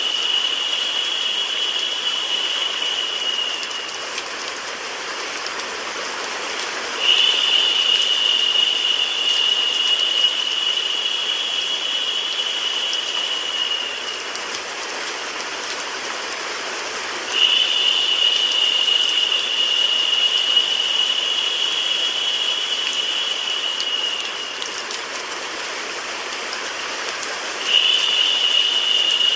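Steady synthetic rain and white-noise hiss. A brighter, higher hissing layer cuts in abruptly about every ten seconds, runs for about seven seconds, then fades out, so the sound swells and eases in a repeating loop.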